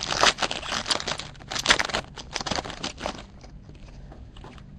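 Foil wrapper of a 2011 Bowman Chrome baseball card pack being torn open and crinkled by hand, a dense crackling for about three seconds that then turns quieter.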